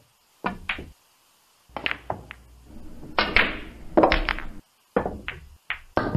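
Pool cue and billiard balls: a string of sharp knocks and clacks as the balls are struck and hit the cushions, each other and the pocket, about ten strikes in all.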